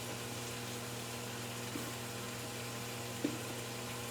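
Steady low hum under a faint, even hiss of food cooking on the stove, with two light knocks about two and three seconds in.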